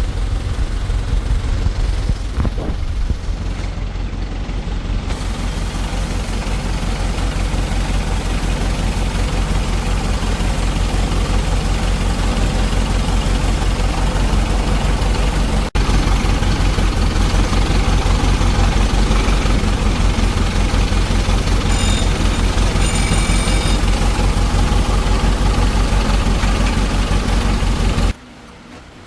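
Heavy diesel engine idling steadily with an even low pulse. The sound drops away sharply about a second before the end.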